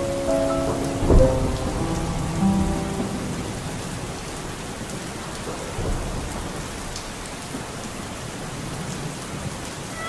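Steady heavy rain with a sharp thunderclap about a second in and a softer low thunder rumble near six seconds. A few held music notes fade out over the first three seconds.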